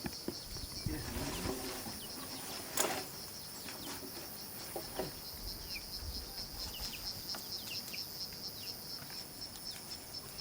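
Outdoor ambience of steady high-pitched insect drone with scattered short bird chirps, and one sharp knock about three seconds in.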